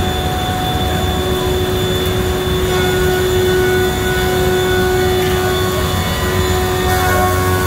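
LMC Planermac industrial wood planer running, a loud, steady machine whine with several steady tones over a rushing noise.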